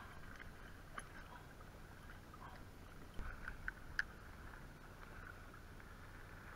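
Faint water lapping around a sit-on-top kayak, with a few small clicks and knocks from handling a spinning rod and reel, the sharpest about four seconds in.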